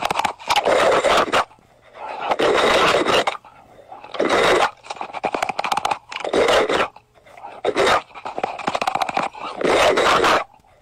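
Crunching and chewing of crisp food in about eight bursts of a second or less, with short pauses between.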